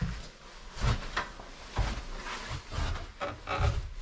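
Footsteps going down wooden stairs: a string of uneven thuds, about two a second, one for each tread.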